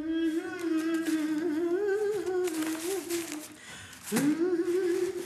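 A person humming a wavering tune with the mouth closed. It breaks off about three and a half seconds in, then comes back a moment later with an upward slide into a held note.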